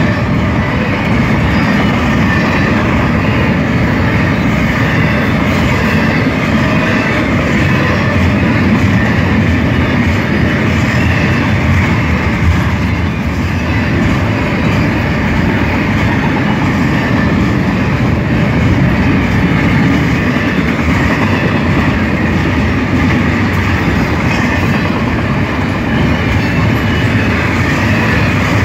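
Canadian National double-stack intermodal freight cars passing close by: a loud, steady noise of steel wheels on the rails, with repeated clicks.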